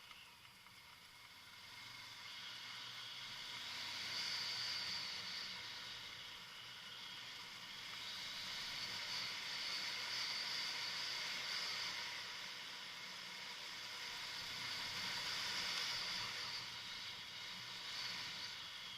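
Kawasaki Versys motorcycle riding on a dirt track: a hissing rush of tyre and wind noise swells and fades several times over a faint low engine hum.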